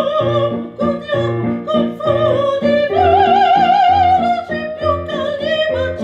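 A soprano singing an opera aria with wide vibrato, including one long held high note in the middle, over an instrumental accompaniment of regularly pulsing low chords.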